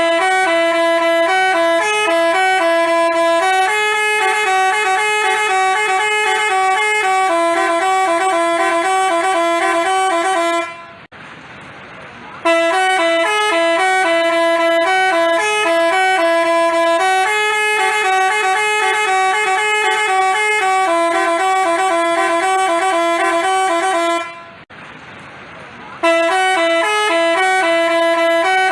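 Basuri telolet horn playing a melody of quick stepped notes. The tune runs about eleven seconds, stops briefly, and starts over twice more.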